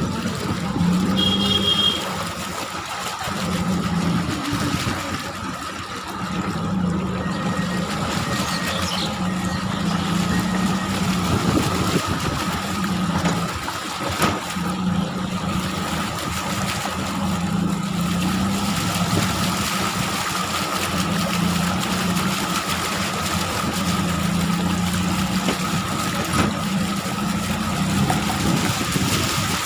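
Motor engine running steadily, with a low hum that swells and fades every second or two and a steady whine above it.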